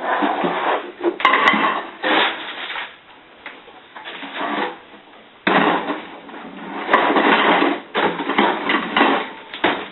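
Household items clattering and rustling as they are handled and put back into a fridge, in uneven bursts with a sudden louder stretch about five and a half seconds in.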